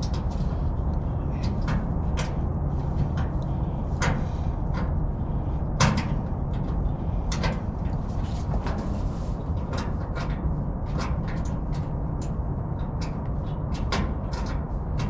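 Irregular metal clicks and knocks from bolt hardware being worked by hand under a pickup bed while fastening a fuel transfer tank from below, with one sharper knock about six seconds in, over a steady low rumble.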